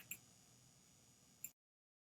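Near silence: faint room tone with a couple of small clicks at the start and another about a second and a half in, then the sound cuts off to dead silence.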